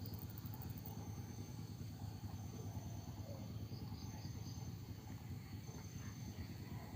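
Insects trilling steadily in the background in several high, thin tones, some pulsing; a higher pulsing buzz drops out about a second in. A steady low hum runs underneath.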